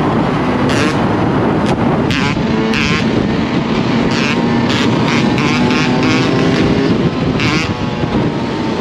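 Yamaha YZ125 single-cylinder two-stroke dirt bike engine running under way, with its pitch swinging briefly about two seconds in. Short sharp crackles recur throughout.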